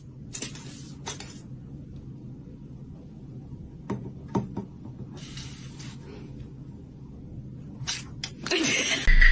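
A low steady hum with a few light knocks and clinks about four seconds in, and short rustling noises scattered through.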